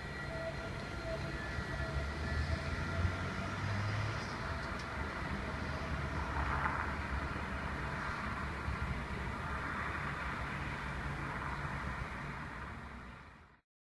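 Alstom Citadis tram running along the street at a distance: a steady low rumble with a faint whine at first, mixed with passing road traffic. The sound fades out near the end.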